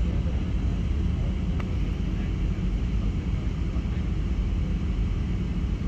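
Steady low rumble of a jet airliner's engines and airflow heard inside the passenger cabin, with a faint click about a second and a half in.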